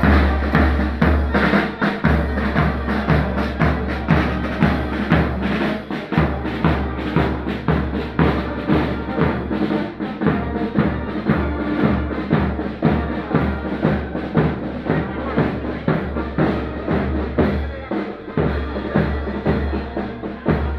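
Marching brass band playing a march, with a bass drum and drums keeping a steady, even beat over a sustained tuba bass line.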